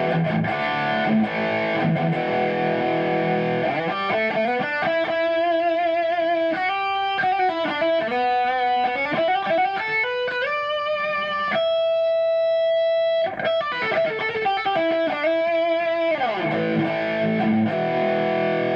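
Kiesel Osiris electric guitar on its bridge pickup through a low-gain plexi crunch amp profile on a Kemper Profiler. Chords, then a single-note lick with bends and vibrato and one long held note, then chords again.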